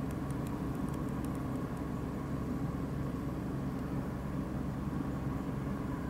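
A steady low mechanical hum, with a few faint light ticks in the first couple of seconds.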